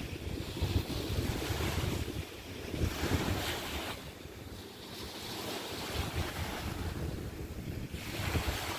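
Wind buffeting the microphone in uneven gusts, over the wash of waves on a beach that swells and fades every few seconds.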